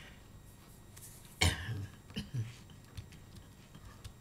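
A woman coughs once, sharply, about one and a half seconds in, followed by two brief, quieter throat sounds.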